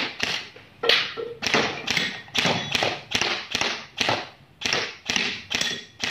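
Suppressed E&C EC-633 airsoft rifle firing semi-auto, a steady string of single sharp shots at about two a second.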